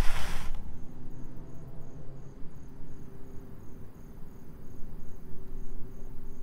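A cricket chirping, a high, even chirp about three times a second, over a low background rumble. A brief rush of noise sounds right at the start.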